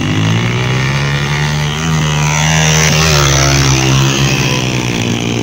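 Small motorcycle engines running hard under full throttle, a steady loud drone whose pitch shifts a little as the bikes accelerate past.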